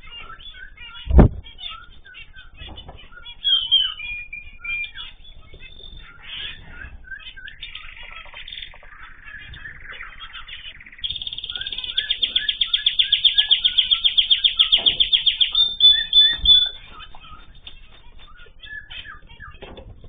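Small aviary finches chirping and calling, with a loud knock about a second in. From about halfway through, a fast, even trill of about ten notes a second runs for some five seconds and is the loudest sound.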